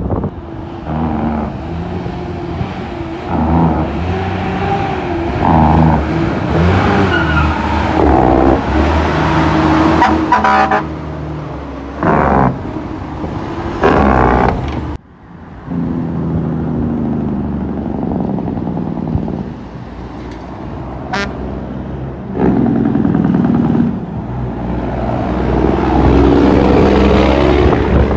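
Heavy truck's diesel engine running, its pitch rising and falling as it pulls and changes speed. It drops away abruptly about halfway through, then the engine sound resumes.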